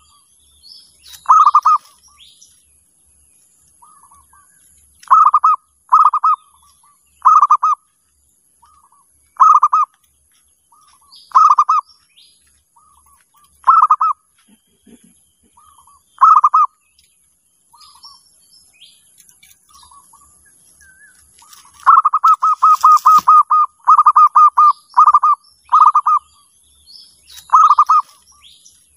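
Zebra dove (perkutut) cooing: short rolling bursts of quick coos, repeated every second or two, with a longer, faster run about two-thirds of the way in. Other small birds chirp faintly between the bursts over a steady faint high hiss.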